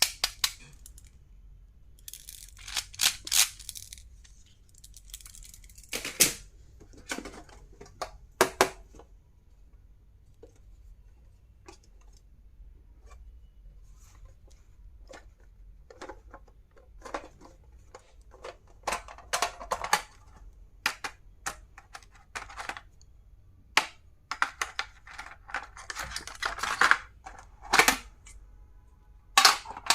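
Stationery and its packaging being handled during an unboxing: scattered clicks and taps with short crinkling and tearing rustles, quieter for a few seconds in the middle.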